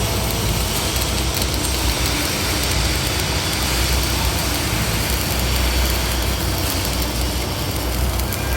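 Shielded metal arc (stick) welding: the electrode's arc crackling and hissing steadily, over a low hum.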